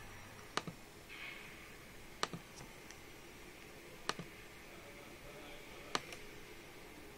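Four sharp clicks of a computer pointing-device button, each a press followed by a quick release, about two seconds apart: the pointer clicking through an installer's Continue buttons.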